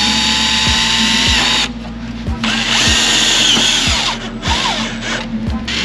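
Cordless drill driving screws through a fender flare into a car's fender, its motor whining in bursts. One run lasts about a second and a half, then after a short pause come several shorter pulls of the trigger, each dropping in pitch as it stops. A steady beat of background music plays underneath.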